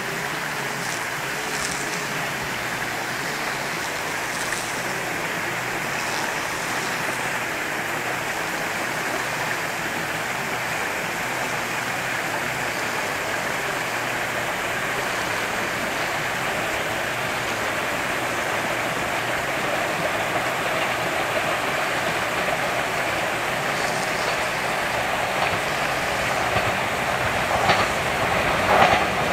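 Steady rushing noise that grows slowly louder as a JR 485 series 'Hana' electric train approaches, with the clack of its wheels over rail joints starting near the end.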